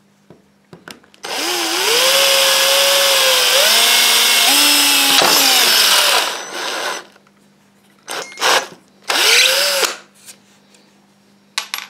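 Cordless drill boring a pilot hole, smaller than the screw, into MDF with a small twist bit: the motor runs for about five seconds, its whine stepping up in pitch a couple of times before it winds down. Near the end the drill is briefly spun up twice more.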